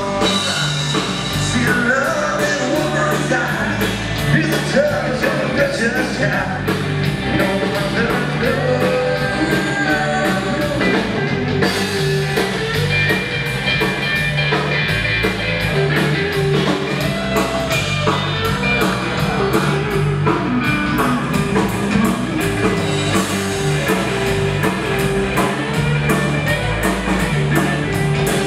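Live country-rock band playing: electric guitars and bass over a drum kit keeping a steady beat.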